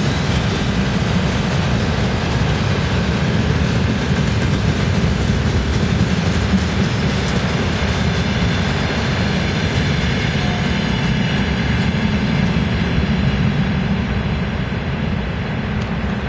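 Freight train wagons rolling past close by, their wheels running on the rails with a steady rumble that eases slightly near the end as the last car passes and pulls away.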